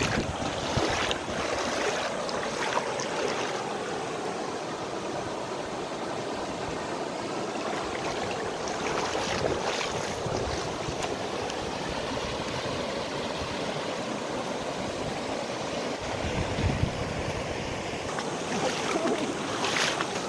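Shallow river running over stones: a steady rush of flowing water, with a low gust of wind on the microphone about three quarters of the way through.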